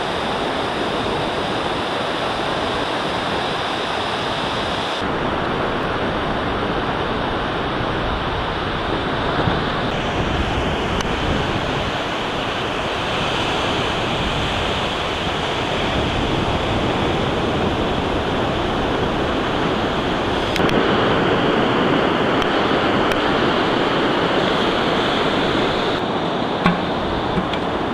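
Steady rushing noise of surf breaking on the beach, with a couple of short sharp knocks near the end.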